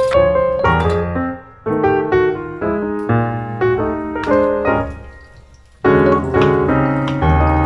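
Background piano music, a melody of short notes. It fades nearly away about five seconds in and starts again about a second later.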